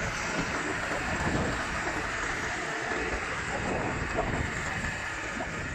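Engine of a fencing rig's hydraulic power unit running steadily, a continuous mechanical rumble.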